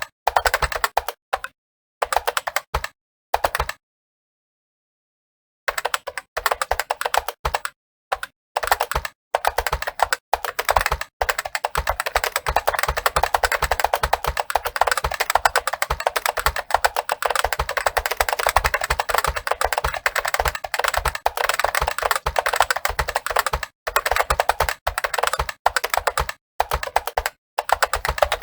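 Computer keyboard being typed on at speed: a dense, rapid run of keystrokes with short breaks, stopping completely for about two seconds a few seconds in, then running almost without pause.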